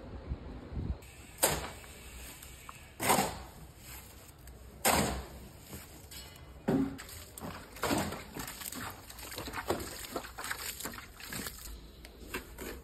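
Wet cement mortar being mixed and worked: a series of wet slaps and scrapes, one every second or two, followed by quicker, lighter scrapes near the end.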